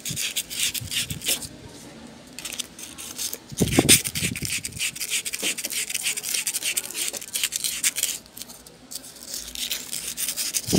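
Very fine sandpaper rubbing back and forth on an electric fan motor's steel rotor shaft in quick scratchy strokes, polishing the shaft that worn bushings had blackened and scored. There is a louder, lower sound about four seconds in.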